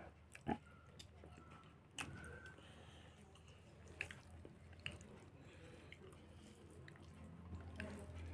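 Faint close-up eating sounds: chewing of rice and saucy meat eaten by hand, with occasional sharp wet clicks and smacks over a low steady hum.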